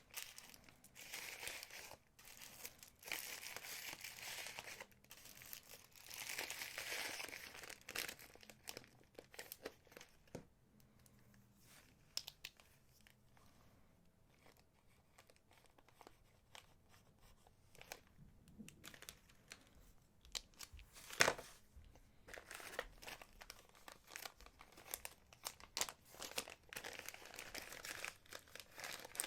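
Packaging crinkling and rustling as it is handled and opened, in bouts with quieter pauses between, along with scattered small clicks and one sharp click about two-thirds of the way through.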